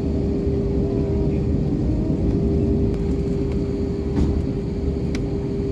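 Airbus A320 jet engines and airflow: a dense, steady rumble with a hum held at one pitch, and a couple of faint clicks near the end.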